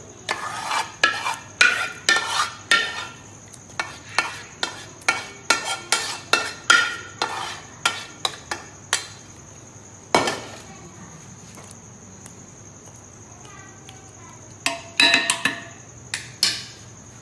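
A metal spoon scraping and knocking against the inside of an aluminium cooking pot as chicken masala is scraped out onto rice in a larger aluminium pot. Quick clinks and scrapes for the first nine seconds or so, a single knock about ten seconds in, then another short burst of clinks near the end.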